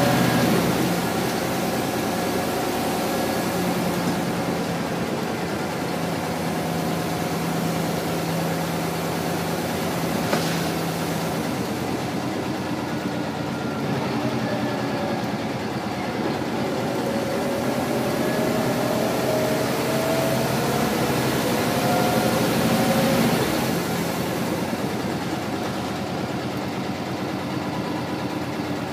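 Scania L94 single-decker bus with a ZF automatic gearbox, heard from inside the saloon while driving: the engine runs with a whine whose pitch rises steadily as the bus gathers speed, then drops away near the end.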